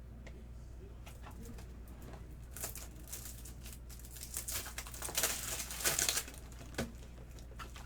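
Trading cards and their plastic wrapping or sleeves being handled: soft clicks, then a run of rustling and crinkling that grows loudest about five to six seconds in.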